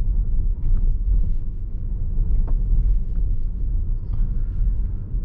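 Low, steady rumble of tyre and road noise inside the cabin of an electric Tesla Model S driving slowly on wet pavement, with a few faint clicks over it.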